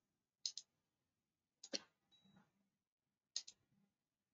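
Computer mouse clicks: three pairs of quick, sharp clicks about a second and a half apart, with near silence between.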